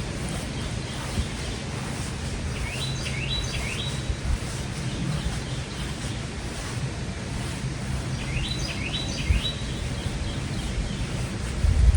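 A small bird singing twice, each time a short phrase of three quick rising notes, over a steady low rumbling background, with a brief thump right at the end.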